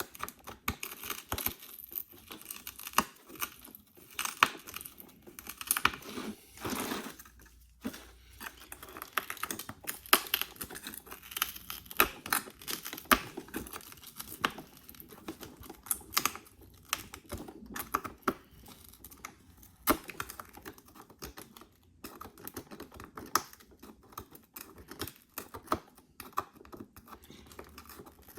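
Cracked back glass of an iPhone SE being chipped and scraped off the frame with a scraping tool: an irregular run of small sharp clicks, crackles and scratches.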